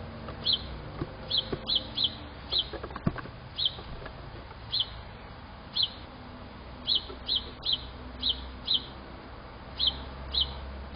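A small animal giving short, high chirps or peeps at irregular intervals, about sixteen of them, sometimes two or three in quick succession.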